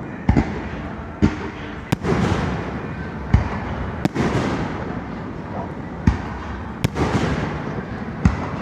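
Fireworks shells bursting overhead, about eight sharp bangs at irregular intervals, each trailed by a rolling, echoing rumble.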